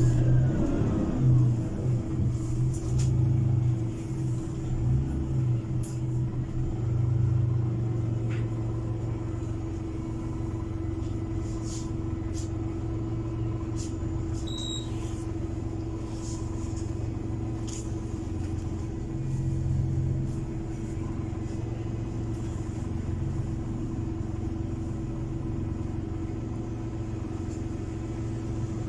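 Heuliez GX 337 natural-gas city bus running, heard from inside the passenger cabin: a low engine rumble with a steady hum, louder and more uneven for the first several seconds, then steady, with a few faint rattles.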